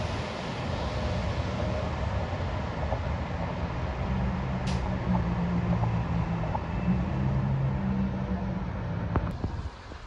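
Traffic noise on a wet street: a steady hiss of tyres and wind, with a low steady engine hum in the middle as the New Flyer XD60 articulated bus pulls away, and a couple of faint clicks.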